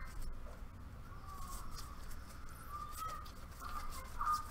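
Faint rustling and light clicks of trading cards being handled and sorted, with several short warbling chirps, the loudest near the end.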